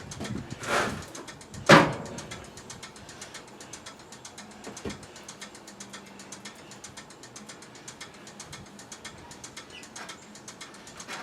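Workshop handling noise: a short scrape, then a sharp metallic clank about two seconds in, over a steady fast ticking.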